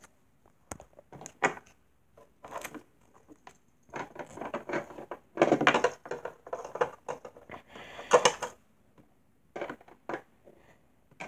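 Handling noise as small plastic toy figures are picked up, moved and set down on a dollhouse floor: scattered irregular taps, rubs and rustles, busiest a few seconds in.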